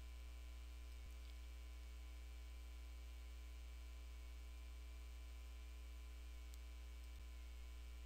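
Steady low electrical mains hum with a ladder of fainter, higher steady tones above it and nothing else.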